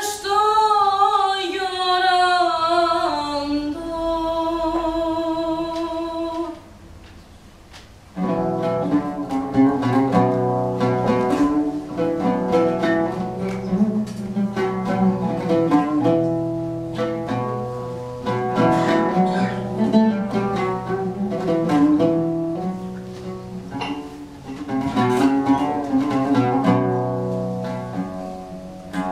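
Live acoustic music. A voice sings a phrase that ends on a long held note, then after a short pause, about eight seconds in, plucked string instruments take up a busy instrumental passage.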